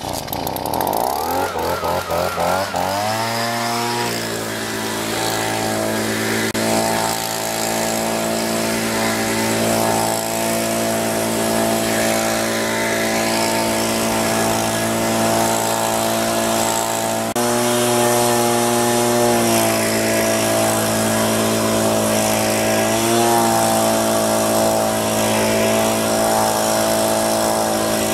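Stihl BG 55 handheld leaf blower's two-stroke engine running: it revs up unevenly over the first few seconds, then runs steadily, its pitch stepping up briefly twice.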